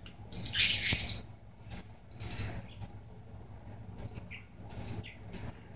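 A budgie's cage toy jingling and rattling in several short bursts, the longest about a second in, as the excited budgie works at it.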